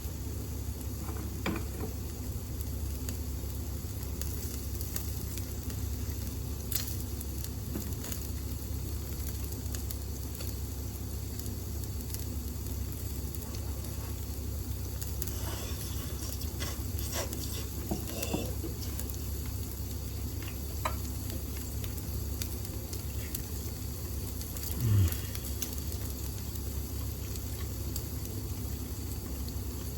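Pork shoulder loin sizzling and crackling on an electric shichirin grill over the steady hum of a kitchen range-hood fan. A few seconds before the end there is one brief, louder low sound that falls in pitch.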